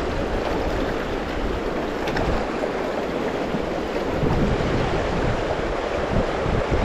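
Steady rushing of river rapids, with wind buffeting the microphone in low gusts that grow stronger about halfway through.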